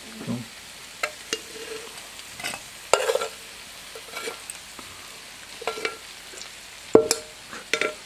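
Metal spoon scraping and clinking against a frying pan and a stainless steel bowl as fried mushrooms are scooped out, in scattered, irregular knocks with a short metallic ring. The loudest clinks come about three and about seven seconds in.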